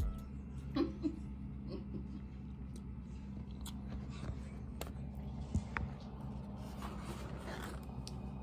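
Handling noise: scattered clicks, knocks and soft rustles as the camera is set up and a taco is lifted from a styrofoam takeout container, over a steady low room hum.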